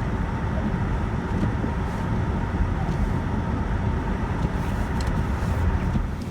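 Blizzard wind buffeting the phone's microphone: a steady, gusty rumble heaviest in the low range.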